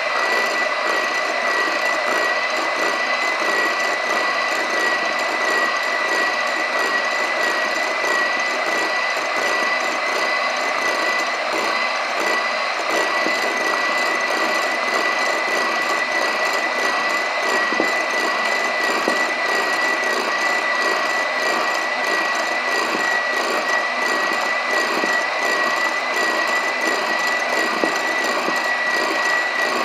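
Electric hand mixer whipping egg whites toward stiff peaks, its motor running steadily with a constant high whine.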